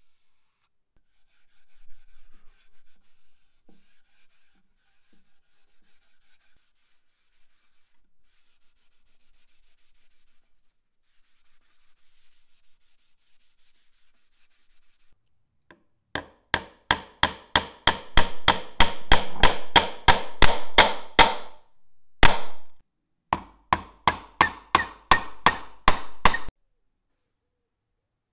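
A hand rubbing down a finished wooden panel with a pad, in brisk back-and-forth strokes at about three a second, loud through the second half and stopping suddenly. Earlier there is only faint brushing and scraping.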